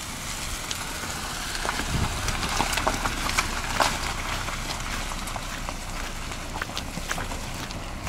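A Honda CR-V driving slowly past on a loose gravel track, its tyres crunching and popping over stones, loudest about three to four seconds in, with wind on the microphone.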